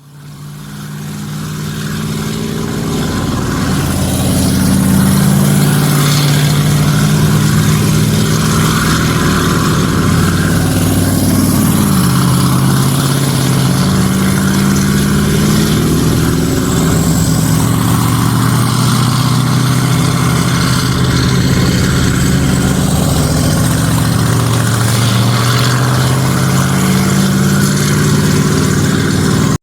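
Vehicle engines running steadily. The sound fades in over the first few seconds, and its low pitch shifts now and then.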